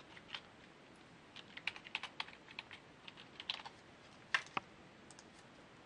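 Faint, irregular keystrokes on a computer keyboard, coming in short clusters of a few taps.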